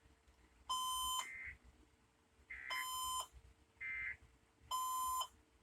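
Three short Emergency Alert System end-of-message data bursts, each a brief warbling squawk about a second apart, marking the end of the test broadcast. Between them an electronic beeper sounds three half-second beeps about two seconds apart.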